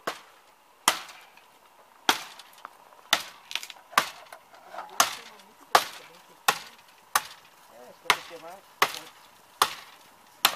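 Wood being chopped: a steady series of sharp blows, a little over one a second.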